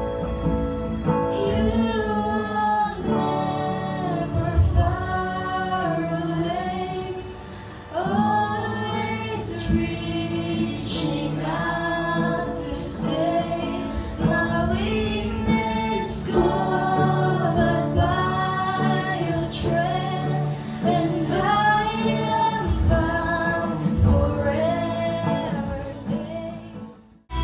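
Live worship song: a woman singing into a microphone with acoustic guitar accompaniment, fading out near the end.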